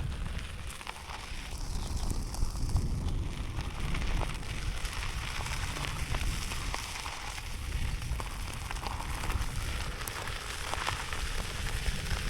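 Wind buffeting the microphone: a steady rushing noise with a low rumble and a constant light crackle.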